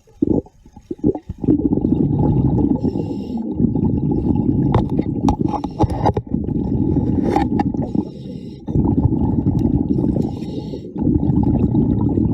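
Rumbling, gurgling rush of a scuba diver's exhaled bubbles heard underwater, in long breaths with short pauses between them, and faint regulator hiss and a few small clicks.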